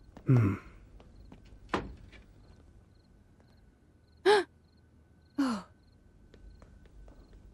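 A person's short non-word vocal sounds, like sighs or brief murmurs, each falling in pitch. The first and loudest comes right at the start and the others come about four and five and a half seconds in, with a single knock about two seconds in.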